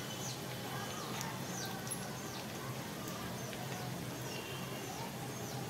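Cumin, garlic and dried red chillies sizzling steadily in hot oil in a kadai, with birds giving short falling chirps again and again in the background.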